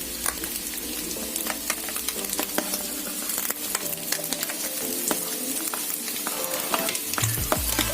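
Oil sizzling in a frying pan as minced beef, meatballs and spring onions are stir-fried, with frequent sharp clicks and scrapes of a spatula against the pan throughout. Faint background music under it.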